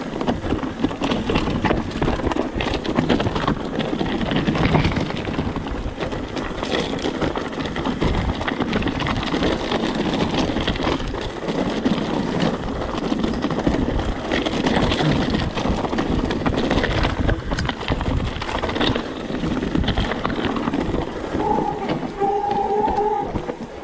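Mountain bike rattling and clattering down a rough, rocky trail, with tyres crunching over loose ground and wind rushing past. Near the end a brief steady whine sounds for about two seconds.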